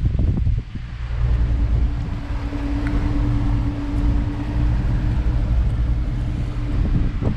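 Twin 250 outboard motors running at low speed, around 1,100 rpm, as the boat idles along: a steady low rumble, with a held hum joining in about a second in.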